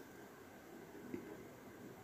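Near silence: faint room hiss, with one soft click about a second in as fingers press and handle a small plastic cartoon photo-stand toy.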